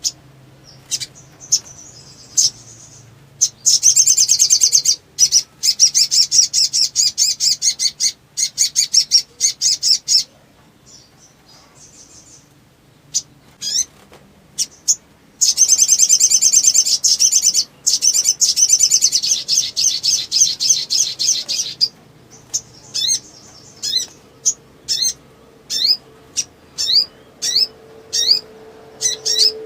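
A sogok ontong (little spiderhunter) singing excitedly in long, very fast, high trills, twice, with single sharp chirps in between. Near the end it switches to a quick run of short rising chirps.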